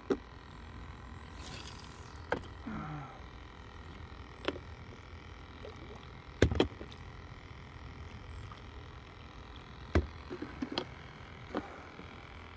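Scattered light knocks and clicks from handling fishing gear in a plastic kayak, the loudest a quick double knock about halfway, with a small cluster near the end.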